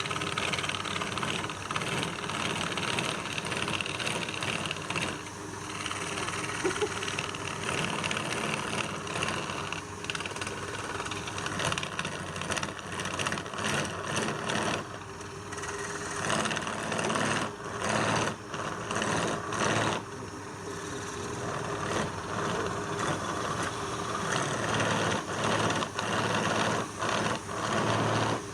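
Wood lathe running, with a turning tool working the spinning wood. The cutting noise swells and drops unevenly over a steady motor hum.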